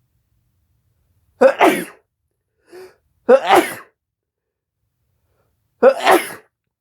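A person sneezing three times, about two seconds apart; each sneeze is a sharp burst with a quick second part trailing after it.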